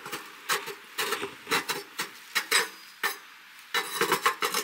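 The round lid in the top plate of a Winnerwell Nomad wood stove is rocked by a gloved hand and clacks against the stove top in quick, irregular metal knocks. The looseness is a slight gap around the lid that lets smoke leak out at times.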